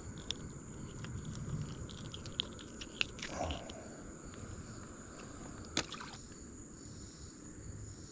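Irregular light clicks and scrapes from landing and handling a small crappie in a boat, with one sharp knock about six seconds in, over a steady high-pitched hum.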